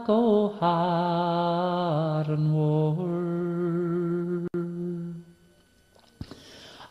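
A single voice singing a slow melody of long held notes, each drawn out for one to two seconds with a slight waver. The phrase fades out about five seconds in, leaving a brief quiet pause before the next phrase begins at the very end.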